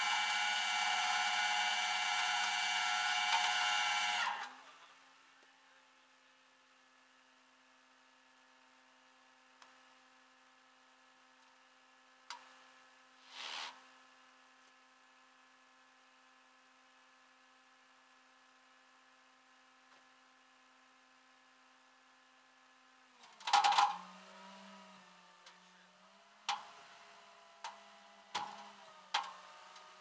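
Rollback tow truck's winch running with a steady mechanical whine as it pulls a vehicle up the flatbed, cutting off sharply about four seconds in. A faint steady hum is left, and near the end comes a loud clank followed by a string of sharp clicks.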